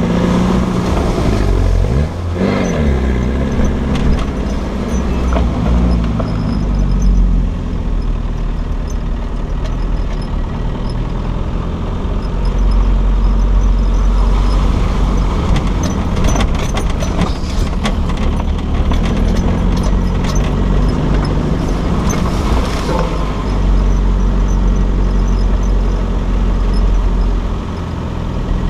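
Off-road 4x4's engine running under load as it drives along a rough, wet track; the revs drop and climb again about two seconds in. Knocks and clatter from the wheels and body come through in the middle as it crosses the puddled stretch.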